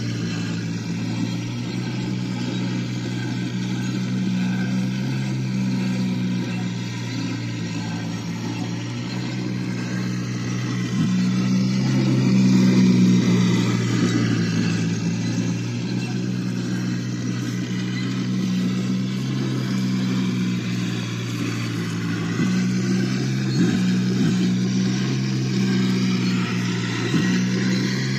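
1/6-scale RC M3 half-track driving over dry grass, its drive running with a steady low drone that dips briefly about a third of the way in and again near the end.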